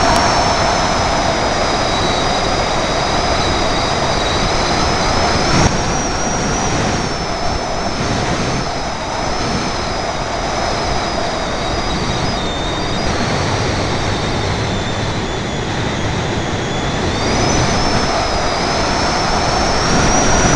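Steady wind rush of airflow over a small onboard camera on a radio-controlled model glider in flight. A thin high whine runs through it, dipping slightly in pitch in the middle and rising again near the end.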